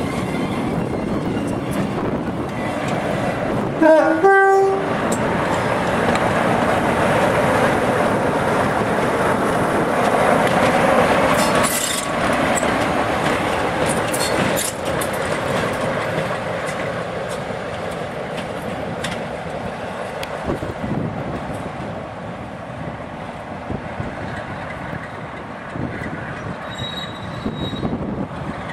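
Class 47 diesel locomotive 47401 passing, its Sulzer twelve-cylinder engine running with wheel and rail noise. It gives a short two-note horn blast about four seconds in. The sound grows loudest about ten to twelve seconds in and eases as it draws away.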